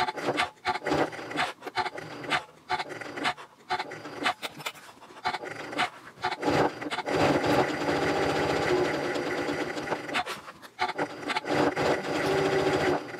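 Janome Continental M7 Professional sewing machine stitching through layered quilting cotton and interfacing, first in short stop-and-go bursts, then running steadily for a few seconds at a time near the middle and end.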